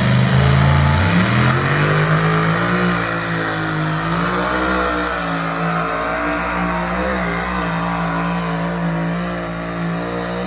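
Pulling truck's engine running at high revs under load while dragging a weight-transfer sled. The pitch climbs about a second in, then holds steady and high.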